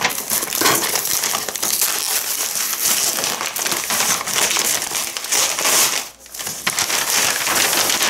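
Packing paper crumpled and rustled by hand in a dense, continuous crackle, with a brief pause about six seconds in.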